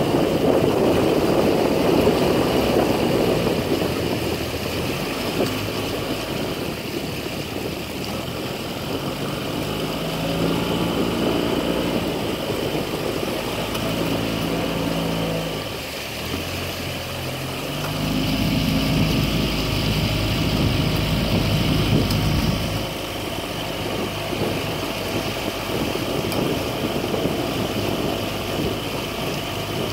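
Small outboard motor on a boat running at low speed alongside a rowing shell, its pitch stepping up and down a few times as the throttle is eased and opened.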